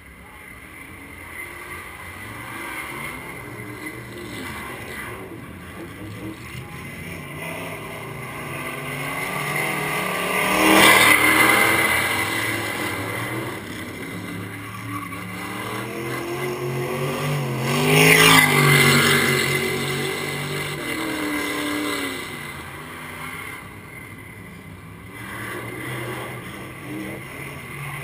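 A dirt-track race car's engine running laps, swelling and fading as it circles. It passes close and loud twice, about eleven and eighteen seconds in.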